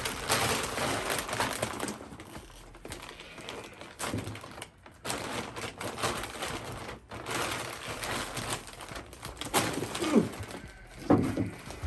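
Dry grain feed pouring out of two bags at once into a feed container: a steady, rattling patter of pellets and grain. Near the end there are two short calls that fall in pitch.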